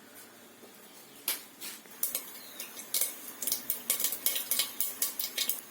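Mustard seeds popping and spluttering in hot oil in a pan: irregular sharp pops that start about a second in and come more often toward the end, the sign that the oil is hot enough and the seeds are bursting.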